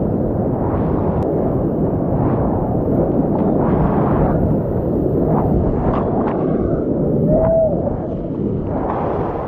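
Whitewater rapids rushing loudly around a kayak, with the splash of paddle strokes cutting in here and there.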